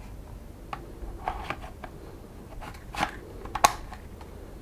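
Scattered hard plastic clicks and knocks as a DJI Phantom 3 SE quadcopter body and its flight battery are handled, with one sharp click about three and a half seconds in the loudest.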